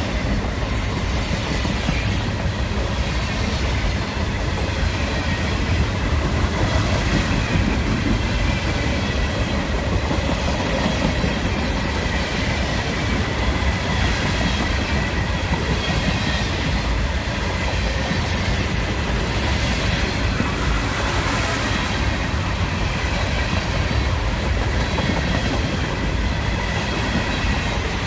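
Freight cars rolling past at speed: a steady rumble of steel wheels on rail with clickety-clack over the rail joints, and a thin high wheel squeal running under it.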